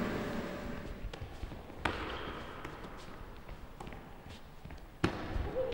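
A handful of sharp knocks at uneven intervals over a faint background hiss, the loudest about five seconds in.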